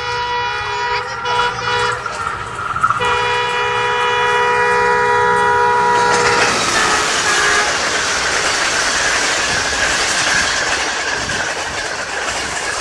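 Pakistan Railways Green Line express train approaching and passing at speed. The locomotive's multi-tone horn sounds, drops back about a second in, and blows again, louder, from about three seconds to six. Then the horn gives way to the loud rushing rattle of the coaches' wheels on the rails going by.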